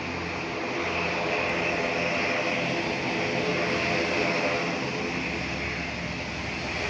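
Jet engines of a Lufthansa Airbus A321neo, Pratt & Whitney PW1100G geared turbofans, running steadily. The sound is a hissing roar over a low drone, growing a little louder about a second in.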